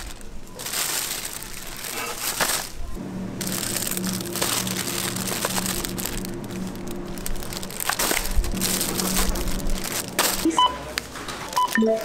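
Plastic produce packaging crinkling and rustling as it is picked up and handled, over background music with a pulsing low note. Near the end come a few short electronic beeps from a self-checkout scanner.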